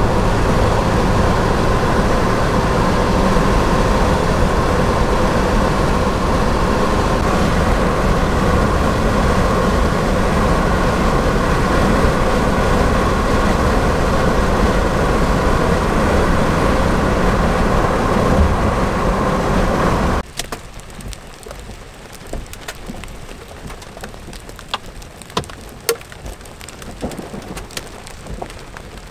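Vehicle driving on a rain-wet highway: steady loud road and engine noise. About twenty seconds in it cuts to hail and rain falling into a lake, a quieter rain hiss broken by sharp ticks and splashes of hailstones striking.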